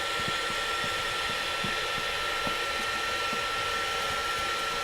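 Hand-held hair dryer running steadily: an even rush of blown air with a constant high whine from its motor.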